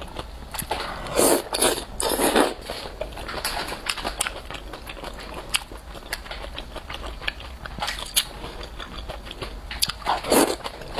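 A person eating wide flat noodles in sesame sauce close to the microphone: steady wet chewing clicks and smacks, with louder slurps about a second in, again a second later, and near the end.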